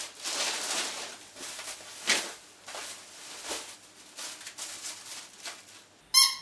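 Thin plastic wrapping and bags rustling and crinkling as they are handled, in uneven crackles. Near the end comes one short high squeak.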